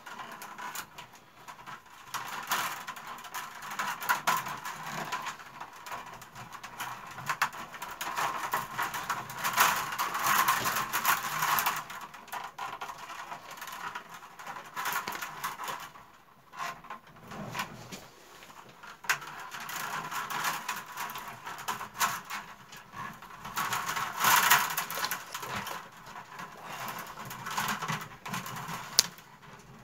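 Willow rods creaking, rustling and clicking as two pairs of hands weave them between the closely set stakes of a wicker basket, in an uneven run of rubbing and small clicks.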